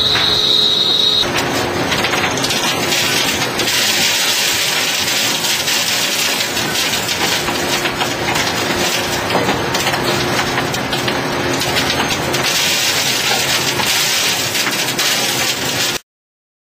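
Viper VT-40Ax2000 CNC machine cutting metal under its 50-horsepower spindle: a loud, steady machining hiss with a faint hum that comes and goes, cut off suddenly near the end.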